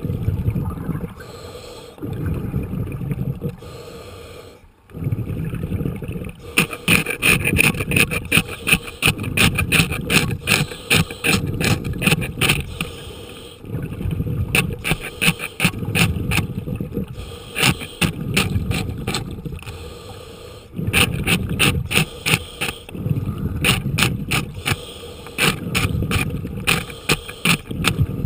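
Underwater scraping of compacted barnacle growth off a boat's keel: from about six seconds in, rapid trains of sharp scratchy clicks as a tool works the hard shells, broken by short pauses. Underneath, a low rushing swell recurs every couple of seconds, typical of a scuba diver's breathing and exhaled bubbles.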